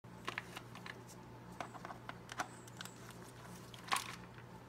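Faint light clicks and taps of gloved hands handling the plastic ignition coils and wiring harness on the engine, with one louder click about four seconds in, over a steady low hum.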